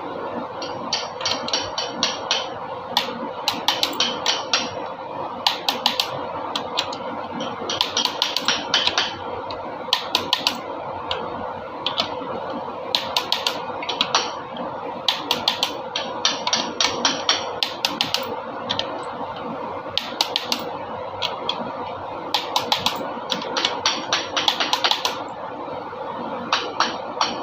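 Ratchet wrench clicking in short rapid bursts every second or two, over a steady hum.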